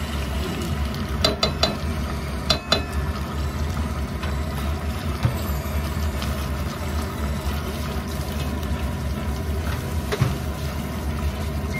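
Chicken wings sizzling in a pot after vinegar is poured in, stirred with a spatula, over a steady low hum. A few sharp clacks of the spatula against the pot come in the first three seconds, and one more near the end.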